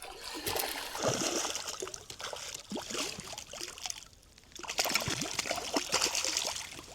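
Water splashing and trickling in two spells, with a pause about four seconds in, as a hooked small trout is brought in at the surface and netted.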